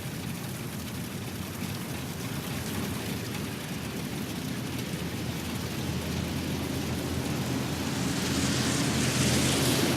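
Rain falling steadily, an even hiss with a low rumble beneath it, growing louder and heavier over the last couple of seconds.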